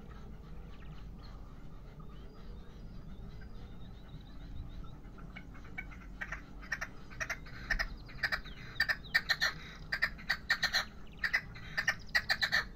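Young male red-legged partridge in a decoy cage singing: from about six seconds in, a run of short, sharp calls repeated several times a second, in quick groups.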